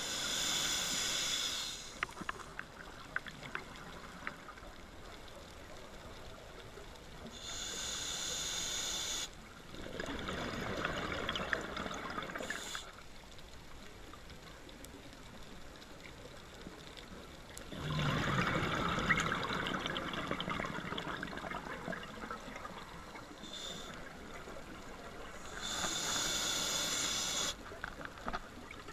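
A scuba diver's regulator breathing cycle heard underwater: hissing inhalations alternating with bubbling rushes of exhaled air, with quieter pauses between breaths.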